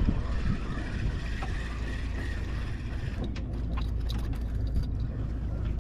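Steady low rumble of outdoor background noise, with several light clicks and knocks from about three seconds in.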